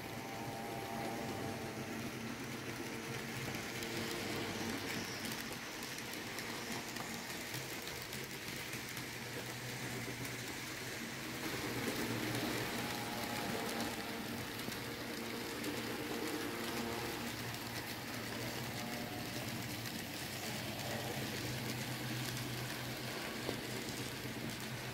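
N-scale model trains running on several tracks at once: a steady fine rattle of wheels on rail with the hum of the small electric locomotive motors, the hum fading in and out.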